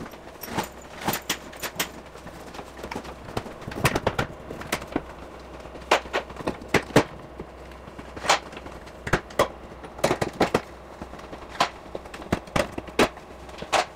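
Irregular clicks, knocks and rustling of hands handling things in a Tesla Model X's front trunk: luggage bags being lifted out and the plastic frunk tub and trim being worked on.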